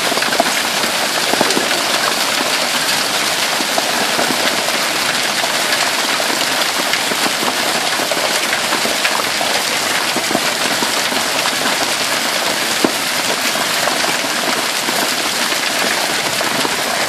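Hail coming down hard, a dense, steady pelting on hard surfaces with many small sharp clicks of individual stones scattered through it.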